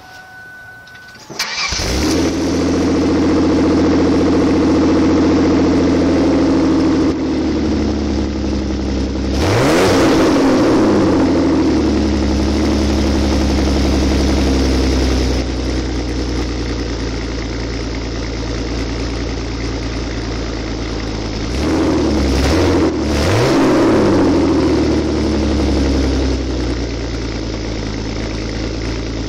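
Straight-piped Ford Taurus exhaust: the engine cranks and catches about a second in, then runs at a loud fast idle. It is revved once about a third of the way through and blipped twice about three-quarters through, settling back to idle each time.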